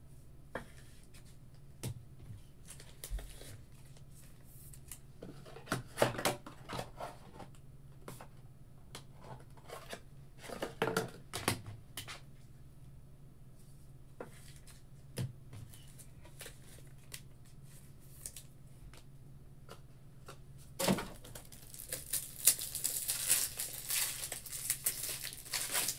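Trading cards and their packaging handled on a desk: scattered soft clicks and rustles. About 21 seconds in comes a longer stretch of crinkling and tearing, a card pack's wrapper being torn open.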